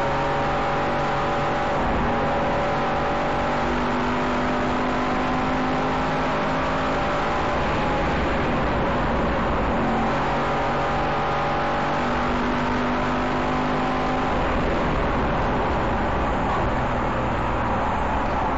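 Aston Martin Vantage engine heard from inside the cabin at speed, its revs rising and dropping several times as it accelerates out of corners and shifts or brakes, over a steady roar of tyre and road noise.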